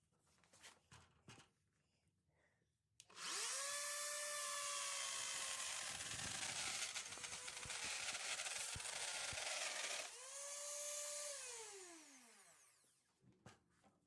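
Router spinning up and cutting a 3/4-inch groove in a wooden board for about seven seconds, its whine dipping in pitch under load. It is then switched off and winds down with a falling whine. A few light knocks come before it starts and after it stops.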